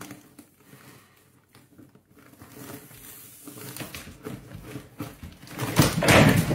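A cat moving about inside a kitchen trash bin, rustling the plastic bin liner, with a louder rustle and knock of the bin about six seconds in.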